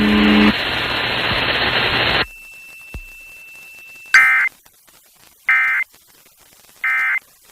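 Hiss of noise for about two seconds, then three short bursts of Emergency Alert System end-of-message data tones (the digital 'NNNN' burst) about a second and a half apart, closing the monthly test.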